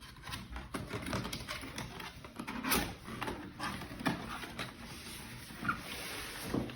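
Cardboard box being opened and its packaging handled: irregular rustling and scraping with light knocks and clicks.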